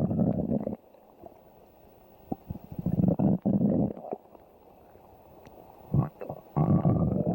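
A person's stomach growling in a string of rumbles: one dies away within the first second, a longer one comes about three seconds in, a brief one about six seconds in, and another starts just after that and is still going at the end.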